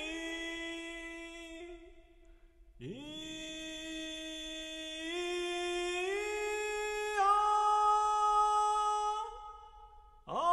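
Horagai conch-shell trumpet blown in long held notes. One note dies away about two seconds in. The next starts with a quick upward scoop, climbs in several steps and fades, and another scooping note begins near the end.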